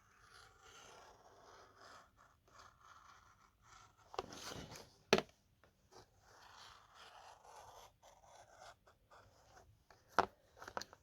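Faint rustling and scraping of a chainsaw gasket kit's packaging being handled, with a few sharp clicks, the loudest about five seconds in and a cluster near the end.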